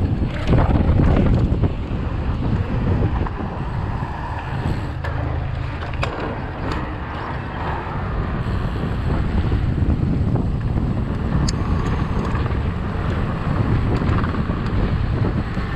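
Wind buffeting the microphone of a camera carried on a moving mountain bike: a steady, loud low rumble, with a few short clicks and rattles.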